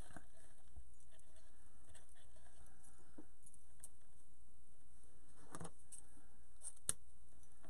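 Faint rustling and light clicks of hands handling ribbon, with one sharper click about seven seconds in.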